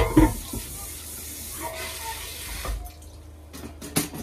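Kitchen tap running into the sink, turned off almost three seconds in, followed by a sharp knock near the end.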